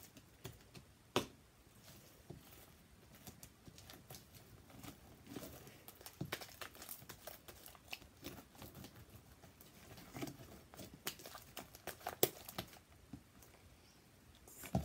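Sticky homemade slime being stretched, squished and pulled apart by hand, giving a steady stream of small wet clicks and crackles, with a couple of sharper taps.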